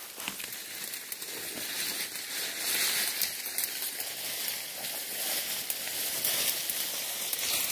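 Leaves, twigs and brush crackling and rustling as someone walks and pushes through dense undergrowth.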